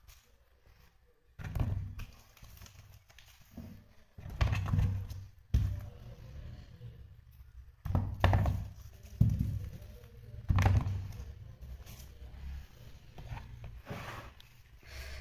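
Fresh vegetables (tomatoes, garden eggs, peppers and onions) being taken from a plastic colander and set down in a plastic tub: about six dull knocks at irregular intervals of one to two seconds, with quieter rummaging between them.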